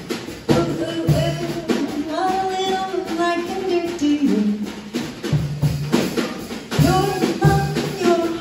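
Live small jazz band: a woman singing into a microphone over piano, upright bass and drums, in held notes that move in steps.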